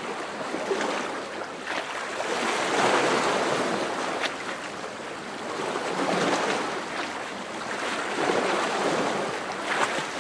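Moving water: a steady wash that swells and eases every few seconds, with a few brief sharper splashy sounds.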